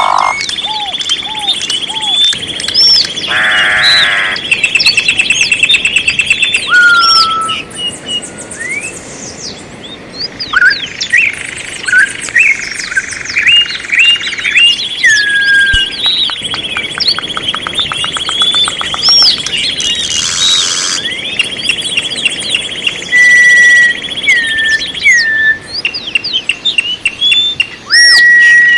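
Several songbirds singing and calling together: long high trills, many quick rising and falling chirps and whistles, and a few buzzy trills, overlapping throughout.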